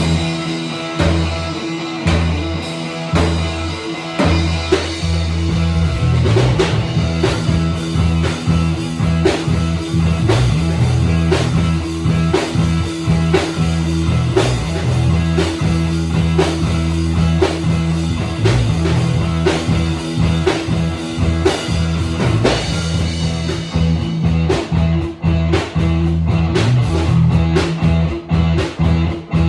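Instrumental rock jam by a trio of guitar, drum kit and bass guitar playing together. The bass holds strong low notes under a steady drum beat, and the high cymbal wash thins out about three-quarters of the way through.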